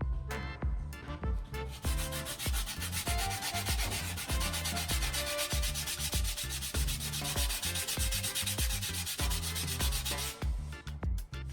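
A grinder sanding a surface: a steady, harsh abrasive hiss that starts about two seconds in and stops shortly before the end. Background music with a bass beat runs underneath.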